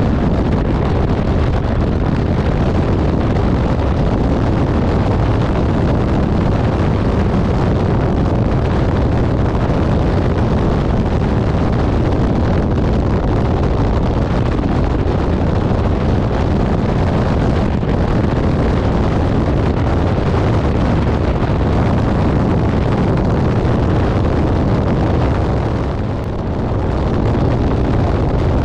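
Wind rushing over the microphone of a camera on a moving motorcycle: a loud, steady roar, heaviest in the low range, with the motorcycle's running noise under it. It eases briefly near the end.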